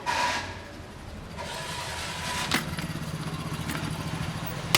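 Street traffic: a motor vehicle engine, most likely a motorcycle, runs steadily and close by from about halfway through. Two sharp clicks stand out, one in the middle and one at the very end.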